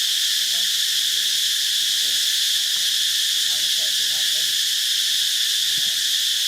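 Steady, unbroken high-pitched chorus of insects, crickets or cicadas, buzzing without a break.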